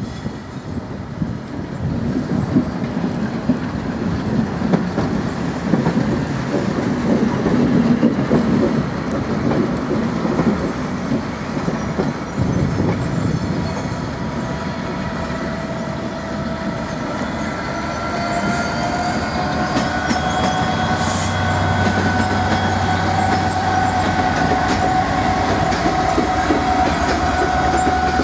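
Class 66 diesel locomotive's EMD two-stroke V12 engine running as it hauls a freight train past, with the rumble and rattle of locomotive and wagon wheels on the track. A steady whine comes in over the second half as the locomotive goes by.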